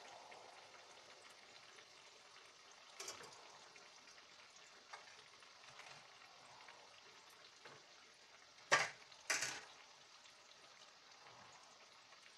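Uzhunnu vadas (urad dal fritters) deep-frying in hot oil, a steady faint sizzle, with a few small clicks and two short sharp knocks close together about nine seconds in.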